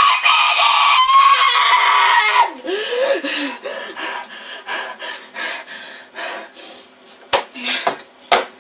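A boy's tantrum. He screams in a long, high, strained shriek for about two and a half seconds, then groans and whines while a computer keyboard clatters under rapid pounding. Two sharp smacks come near the end.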